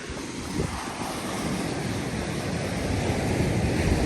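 Surf washing onto a beach, with wind buffeting the microphone; the wash swells louder near the end.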